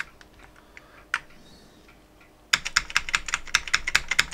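Keys of an Amiga keyboard being pressed. There is a single click about a second in, then rapid, repeated clicking from just past halfway, as Ctrl and other keys are hit over and over. The keys only register some of the time, which the owner puts down to dirty key plungers rather than a broken membrane.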